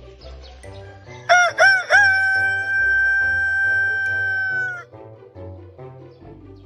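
A rooster crowing once: three short rising notes, then one long held note that ends about five seconds in.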